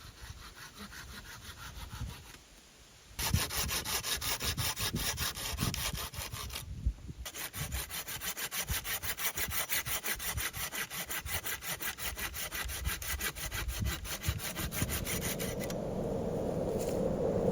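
Hand saw cutting through wood in steady back-and-forth strokes, starting about three seconds in, pausing briefly about seven seconds in, then stopping near the end. A rushing noise grows louder as the sawing stops.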